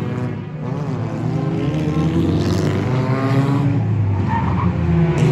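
Engines of a pack of front-wheel-drive enduro race cars running around an oval track, several engine notes overlapping and rising and falling in pitch as cars pass.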